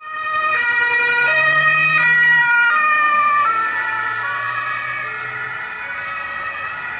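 Two-tone German Martinshorn siren on a blood and organ transport car, alternating between a high and a low note about every 0.7 seconds, growing fainter as the car drives away.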